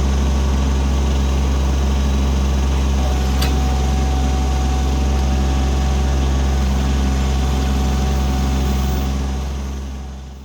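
Kubota B2301 compact tractor's three-cylinder diesel engine running steadily under a backhoe dig, with a faint thin whine over it through the middle. The sound fades out near the end.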